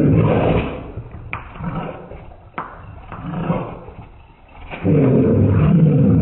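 Golden retriever growling while eating kibble from a stainless steel bowl, the audio slowed down so the growls come out deep and drawn out. The growling is loud at the start and again from about five seconds in, with two sharp clinks of teeth or kibble on the metal bowl in between.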